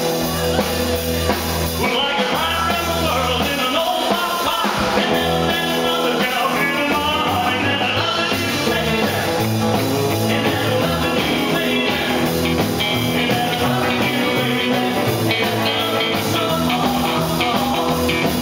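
Live rock and roll band playing a rockabilly number: electric guitars and a drum kit, with a man singing lead.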